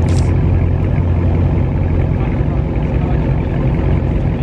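A car's engine running at a steady low rumble, with no revving.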